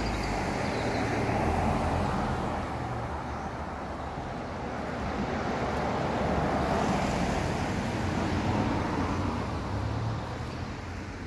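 Road traffic: cars passing along the street, the noise swelling about two seconds in and again for a few seconds past the middle.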